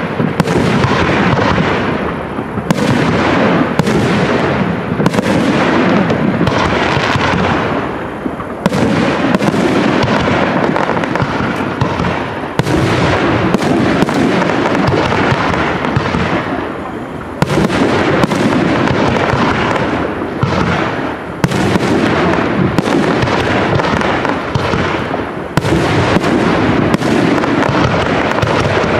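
Aerial firework shells bursting one after another in a dense, continuous barrage, with many bangs running into one another and only brief lulls.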